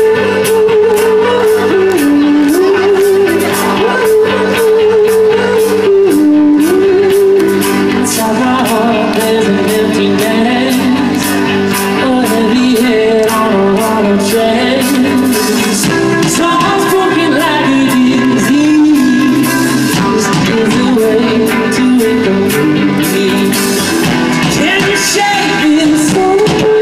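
Live rock band playing: a man singing over electric guitars, bass and drums with a steady beat, recorded loud from the crowd on a handheld iPod Touch.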